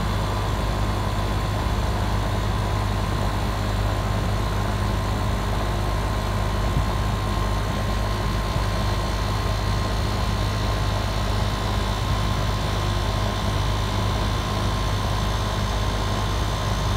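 Outdoor air-conditioning condensing unit of an R-410A split system running: the compressor and condenser fan give a steady low hum with a faint constant whine above it. The system is running low on refrigerant charge.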